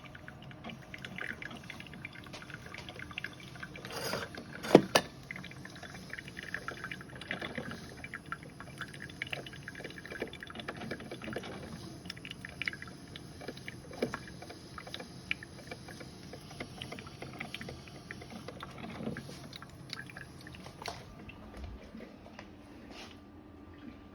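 Coffee being poured and handled at close range: a run of liquid sounds dotted with small clicks and ticks, and one sharp knock about five seconds in.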